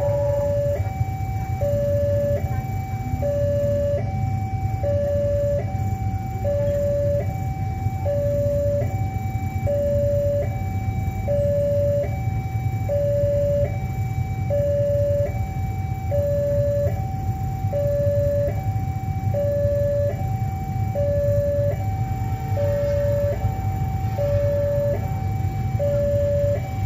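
Railway level-crossing warning alarm sounding for an approaching train: an electronic two-tone signal alternating steadily between a lower and a higher tone, each held just under a second, over a steady low rumble.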